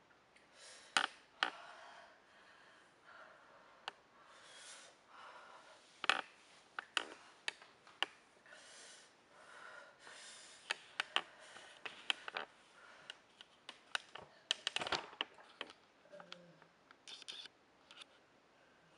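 Breathy sniffles and sharp breaths from a person in pain after eating very spicy food, broken by many small clicks and knocks.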